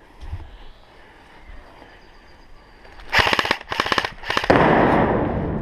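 Airsoft guns firing on full auto: three short bursts of rapid clicks about three seconds in, then a louder, unbroken rattle of fire.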